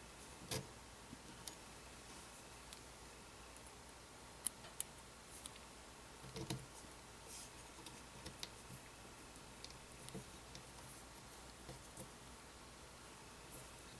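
Scattered light clicks and taps of small metal parts being handled and fitted on an AR-15 lower receiver: KNS non-rotating trigger and hammer pin hardware going in by hand, with a few sharper clicks among them.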